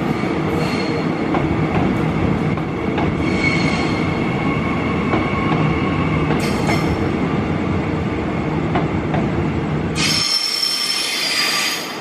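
Electric commuter train running through a station: a heavy rumble of wheels on rail with high-pitched wheel squeal. About ten seconds in the rumble drops out, leaving only the high squeal, which fades near the end.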